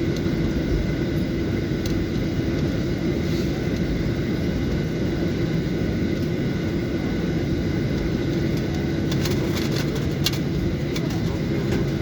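Steady rumble of a moving vehicle, with a few short clicks about nine to eleven seconds in.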